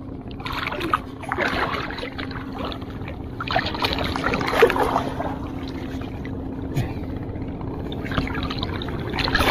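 Shallow seawater sloshing and lapping around a wader's legs close to the microphone, louder in uneven surges as he moves through the water. A faint steady hum runs underneath.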